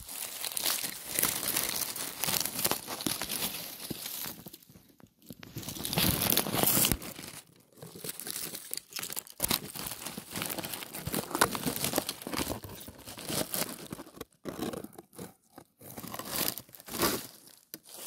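Dry fallen leaves crackling and crunching close to the microphone in irregular stretches with short pauses, as someone moves about in the leaf litter.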